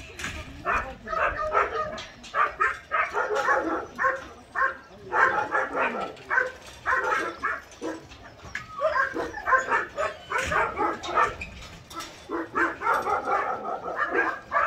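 A large pack of medium and large dogs barking and yipping over one another in a constant overlapping chorus, with brief lulls.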